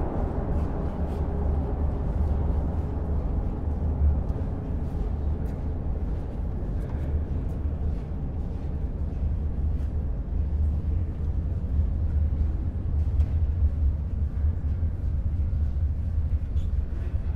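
Metro train ambience: a steady deep rumble of a subway train running, with faint scattered clicks over an even noise.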